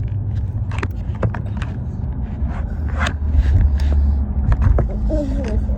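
Car interior road rumble while driving, a steady low drone, with scattered small clicks and rustles over it.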